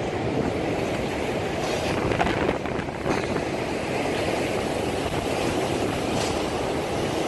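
Storm wind from the typhoon rushing and buffeting the microphone in a steady, loud roar, with a few faint knocks and rattles.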